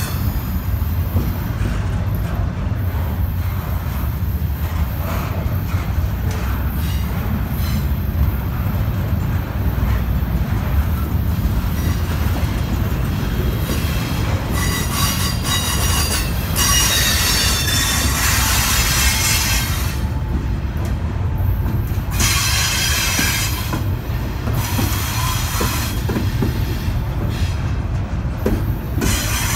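Double-stack intermodal well cars of a freight train rolling slowly past with a steady low rumble, their wheels squealing on the curve in stretches from about halfway through, loudest around two-thirds of the way.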